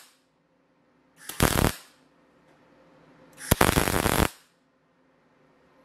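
MIG welder striking two short tack welds, each a brief burst of arc noise under a second long, about two seconds apart, tacking slit-pipe pieces onto a steel round-bar ring.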